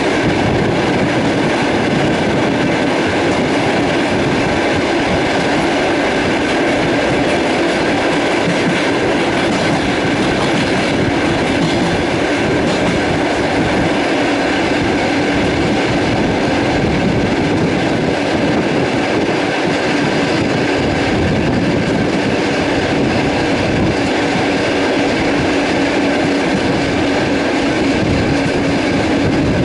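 Passenger train running steadily along the track, heard from on board a carriage: a continuous loud rumble of wheels and rails with a steady hum.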